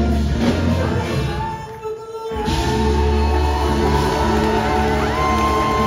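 Large rock band with a horn section playing live, with singing: drums, bass, guitars and horns. The band stops for a moment about two seconds in, then comes back in under a long held high note.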